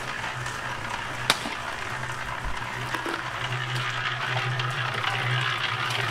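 Firman 120-litre mini concrete mixer running, its drum turning and churning a wet cement, sand and water mix with a steady hum and a gritty swish. A single sharp clink comes about a second in.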